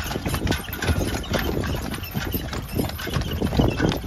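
Horse's hooves clip-clopping on an asphalt road as a horse-drawn carriage moves along.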